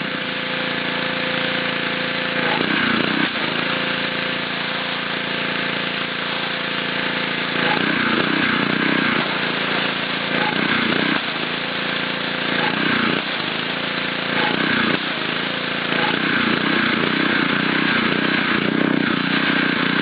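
Gas pressure washer with a Honda 5 hp engine running steadily as it sprays a concrete sidewalk. Its hum comes and goes every few seconds over a constant spray hiss.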